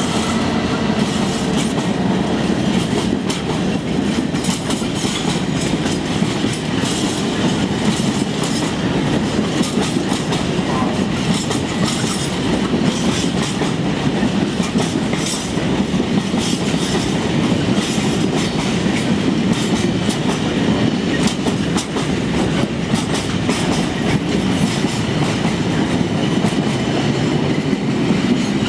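A long rake of JNA open box freight wagons rolls past at speed, with a steady rumble and a quick, continuous clickety-clack of the wheels over the rail joints.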